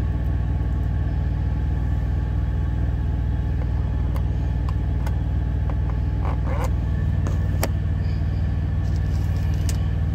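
Semi truck's diesel engine idling steadily, heard from inside the cab as a low, even hum, with a few light clicks and taps of a plastic food tub being handled.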